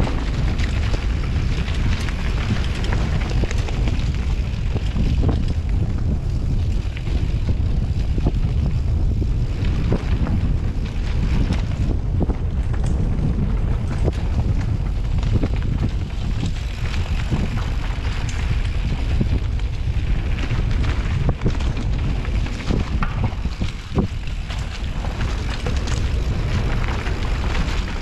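Wind buffeting the microphone of a mountain bike riding a dirt trail, over a steady rumble of tyres, with scattered clicks and knocks from the bike rattling over bumps.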